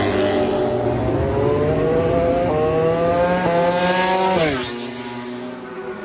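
MotoGP racing motorcycle accelerating hard, its engine pitch climbing, then falling steeply as it passes about four and a half seconds in, after which the engine sound is quieter.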